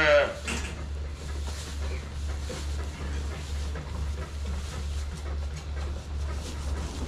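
The tail of a calf's bawl at the very start, then a steady low hum under faint rustling and scuffling of calves in their pen.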